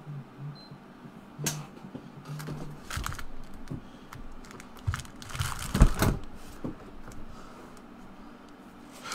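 Scattered clicks, knocks and rustles from a person moving about at a desk and settling into a chair, with a cluster of louder thumps about six seconds in.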